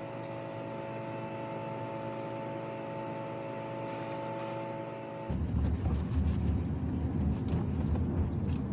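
A steady hum with several held tones. About five seconds in it gives way abruptly to the louder low rumble of a car's engine and tyres heard from inside the cabin while driving.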